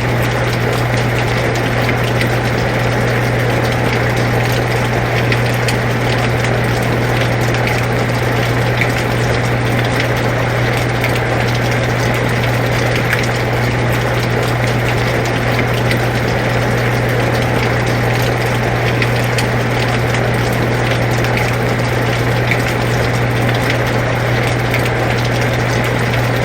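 An air conditioner running with a steady low hum, mixed with the even hiss of rain falling and faint scattered drop ticks.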